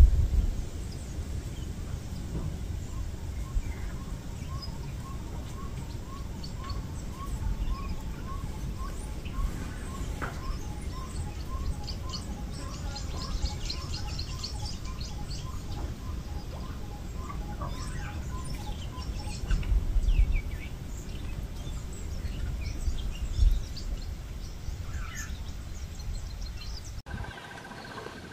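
Wild birds chirping and calling over a low rumble, with one bird repeating a short note about twice a second through the middle. Near the end the sound cuts to a quieter track carrying a steady high tone.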